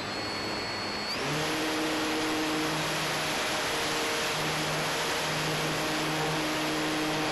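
Durafly Tundra RC plane's electric motor and propeller, heard from the onboard camera as the plane takes off and climbs. A high whine rises in pitch about a second in as the throttle opens up, then a steady, loud rush of propeller and air noise with a lower hum underneath.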